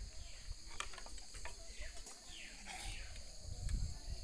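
Steady high-pitched chirring of insects, with scattered light clicks and a bird's falling call twice around the middle. A low rumble of wind or handling on the microphone is the loudest part near the end.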